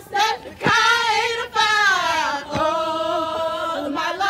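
Young women singing a chant together in unison, with long held, wavering notes, and a short sharp hit keeping time about every two seconds.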